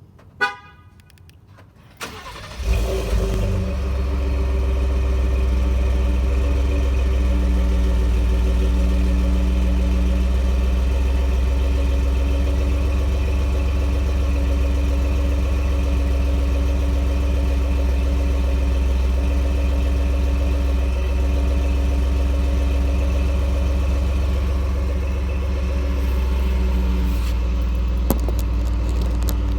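2018 Ford F-150's 3.5 L EcoBoost twin-turbo V6, fitted with SPD catted downpipes, starting: it cranks about two seconds in, catches and settles into a steady idle with a deep hum. A short tone sounds about half a second in, before the start.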